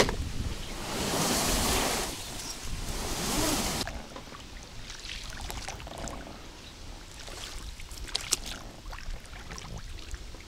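Water and wind noise around a small inflatable boat moving along a shallow reedy channel. A loud rush fills the first few seconds, then it settles to quieter water noise with scattered small splashes and knocks.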